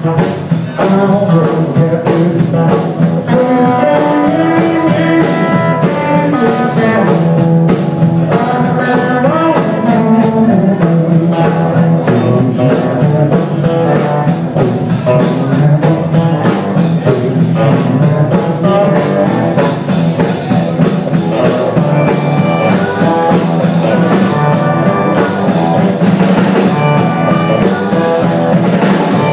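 Live band playing an instrumental passage on electric guitar, electric bass guitar and a Tama drum kit, with no singing.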